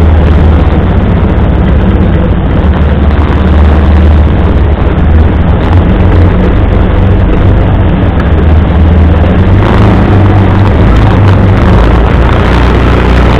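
CFMoto UForce 600 side-by-side's single-cylinder engine running steadily at low trail speed, a loud, even low drone with no marked revving.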